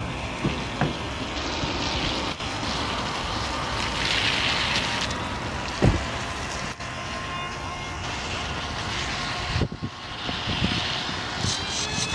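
Brushless electric motor of a radio-controlled plane whining faintly and drifting in pitch as the plane flies overhead, under heavy wind buffeting on the microphone. A sharp knock comes about six seconds in.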